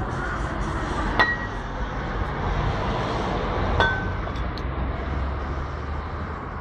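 Glass cachaça bottles clinking together twice, each knock leaving a short ringing tone, over steady background noise.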